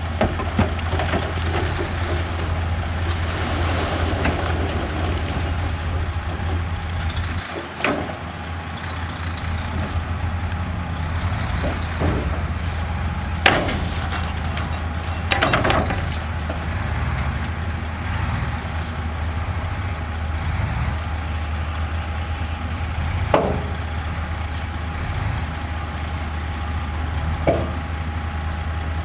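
Heavy diesel earthmoving machinery running steadily with a low drone, broken by about five short, sharp hisses or knocks spread through.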